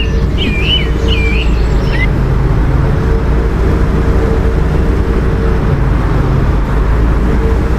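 Volvo B7TL bus's six-cylinder diesel engine running with a low rumble and a steady, high 'hoover' whine, heard from inside the bus. High chirping during the first two seconds.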